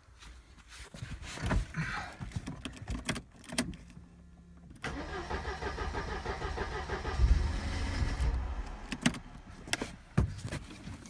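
Mercedes-Benz W124 230E's four-cylinder petrol engine being cranked on the starter for about three and a half seconds, swelling briefly near the end and then stopping without running on: the hard cold start of its K-Jetronic injection. Scattered clicks and knocks come before the cranking.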